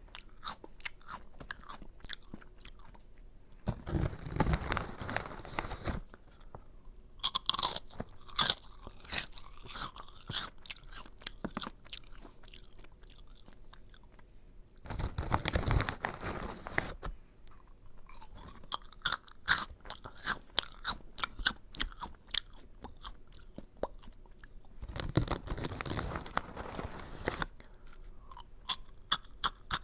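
Close-up crunchy chewing of Aji Curry, a curry-flavoured crunchy snack: many crisp cracks and crunches as it is bitten and munched. There are three longer, denser stretches of crunching, a few seconds in, around the middle and near the end.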